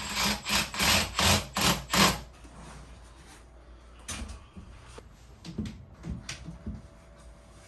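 A run of about seven quick, evenly spaced ratcheting strokes, roughly three a second, in the first two seconds, like a ratchet tool being worked, followed by a few scattered light clicks and knocks.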